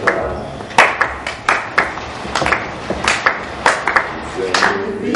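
Several people clapping their hands together in an uneven rhythm, about two to three claps a second.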